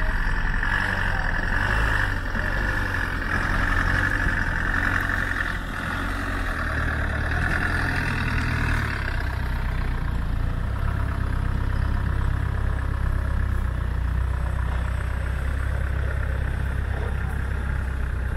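Classic Land Rover Defender 90's engine running steadily at low revs as it crawls over timber sleepers and drives past, with a steady hiss over it that fades about halfway through.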